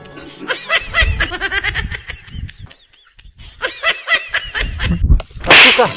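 High-pitched laughter in two bouts of quick repeated bursts, one starting just after the start and one about three and a half seconds in, with a short rushing noise just before the end.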